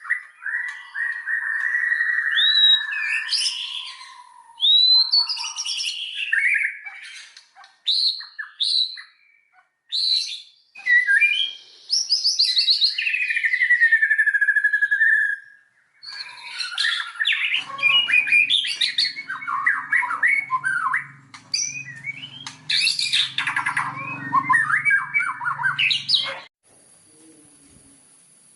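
White-rumped shama (murai batu) singing a varied song of loud whistled notes, sliding phrases and rapid trills, broken by short pauses. It stops about two seconds before the end.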